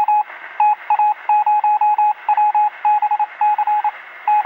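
Morse code sound effect: one high beep keyed in quick short and longer pulses, over a narrow, radio-like hiss.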